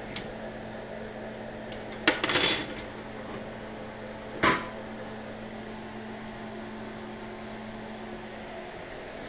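Hard objects being handled on a work surface: a short clatter of knocks about two seconds in and a single sharp knock about four and a half seconds in, over a steady electrical hum.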